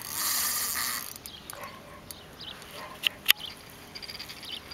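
Fishing reel buzzing for about the first second while a hooked pike fights at the surface, then a few short pitched sounds and two sharp clicks about three seconds in.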